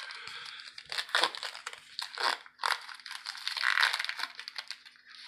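Foil wrapper of a trading card pack crinkling and crackling irregularly as it is worked open by hand.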